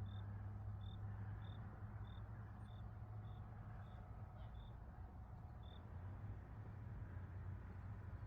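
A bird giving a series of short, high chirps at one pitch, about ten of them at an even pace of under two a second, stopping about six seconds in. A faint low steady hum runs under them.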